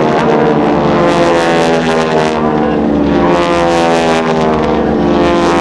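Radial engines of Boeing-Stearman biplanes flying aerobatics overhead, a loud steady propeller drone whose pitch wavers slightly as the planes manoeuvre.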